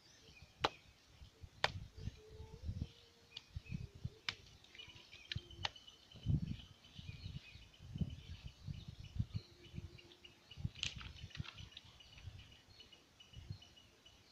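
Wet clay being pressed and patted by hand into a wooden brick mould: irregular dull thuds with a few sharp knocks. Faint high chirping runs in the background from about a third of the way in.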